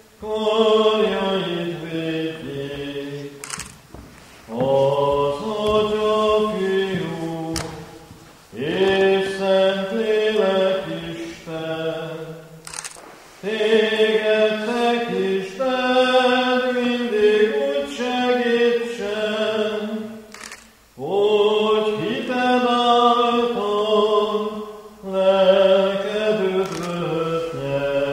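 Voices singing a slow church hymn in long held phrases, with short breaks between the lines.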